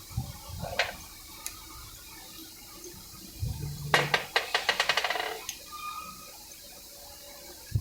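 Metal clinking from workshop handling of parts and tools. About four seconds in comes a quick run of sharp metallic clicks lasting a little over a second.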